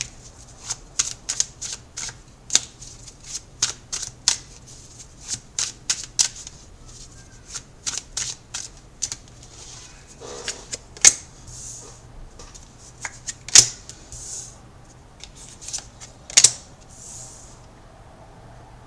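Tarot cards being shuffled by hand: a quick, irregular run of card flicks and slaps, with a few louder snaps in the second half.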